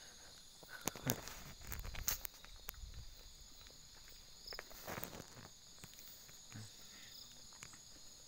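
Footsteps on a dirt track, a few soft irregular steps and scuffs, over a steady high-pitched drone of insects such as crickets.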